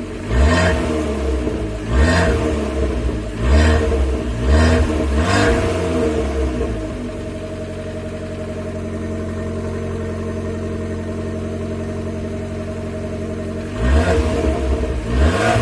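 Abarth 595's stock exhaust and 1.4-litre turbocharged four-cylinder, blipped up and dropped back about five times in quick succession. It then settles to a steady idle for about six seconds before being revved again near the end.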